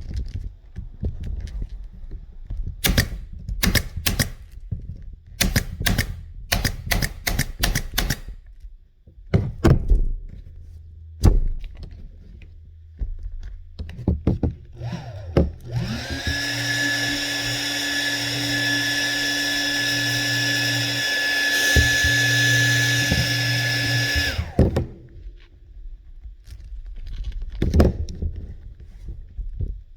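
Pneumatic staple gun firing staples in quick clusters of sharp shots. About halfway through, a small motor spins up and runs steadily for about eight seconds, then stops.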